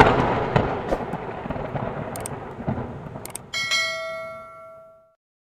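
Intro sound effects: a thunderclap cracks and its rumble fades over about three seconds. A few sharp clicks come about two and three seconds in, then a bell chime rings out and dies away.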